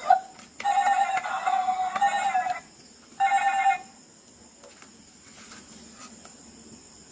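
Toy microphone playing electronic tones through its small speaker: a burst of about two seconds starting just after the start, then a shorter one about three seconds in.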